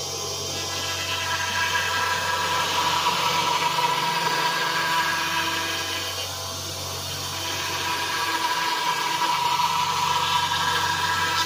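Five-axis CNC router's spindle whining steadily while a long thin bit cuts white foam, the cutting noise swelling, easing briefly in the middle, then swelling again as the tool moves along the piece.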